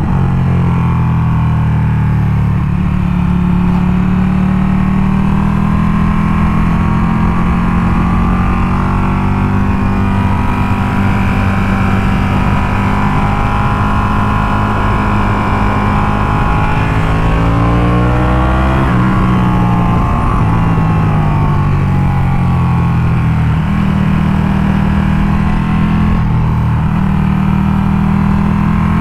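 Ducati Panigale 1299 S's V-twin engine running under a rider through a canyon road. Its note falls and rises with the throttle and gears, with a dip and climb about two-thirds of the way through, over steady wind rush.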